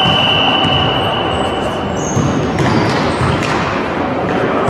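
Busy sports-hall noise during an amateur volleyball match: echoing game and bench noise, with a steady high tone held for about the first two seconds.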